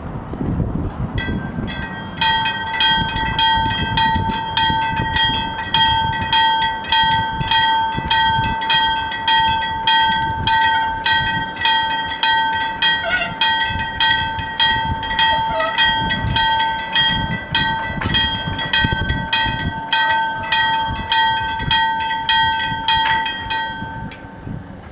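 Level-crossing warning bells ringing in even, repeated strokes, a little over one a second, as the crossing activates for an approaching train. The strokes stop near the end, once the barriers are down.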